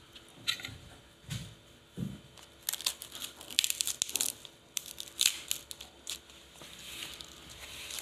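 Fresh banana leaf crackling and rustling as it is folded by hand around a rice parcel. There are a few scattered crackles and a couple of soft thumps at first, then a dense run of sharp crackles from about three seconds in.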